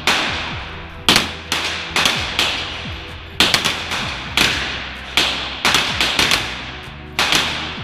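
Pistol shots from several shooters firing at once, coming irregularly with some overlapping in quick runs, each shot echoing off the walls of an indoor range.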